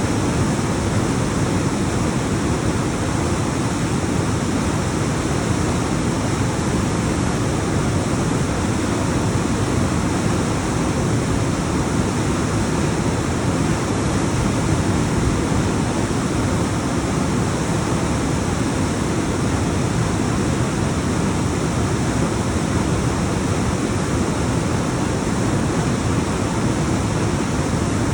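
Alpine mountain waterfall: a steady, continuous rush of water tumbling down rocks, heaviest in the low rumble, with no breaks or changes.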